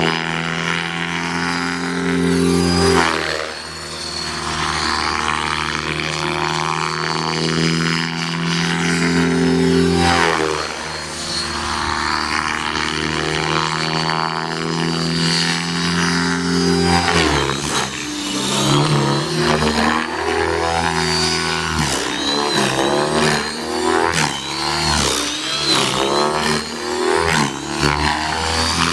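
Electric Align T-Rex 600E RC helicopter in flight: a steady hum of rotor and motor with a whine above it, swelling and fading as it passes. From a little past halfway its pitch and loudness change quickly and unevenly.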